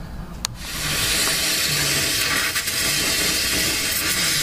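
Gas welding torch burning with a steady hiss, used to melt and re-flow an old weld on a rusted catalytic converter. A sharp click comes about half a second in, just before the hiss starts.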